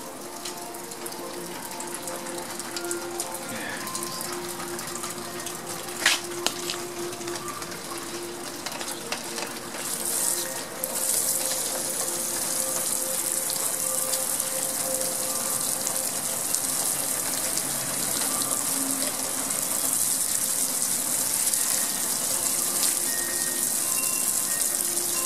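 Garden hose spray nozzle hissing as it sprays water onto a plexiglass projection screen, starting about ten seconds in and running steadily from then on. Before it, rain falling, with one sharp knock about six seconds in.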